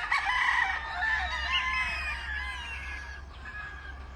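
A yard of gamefowl roosters crowing and calling over one another, several overlapping drawn-out calls that fade toward the end, over a steady low rumble.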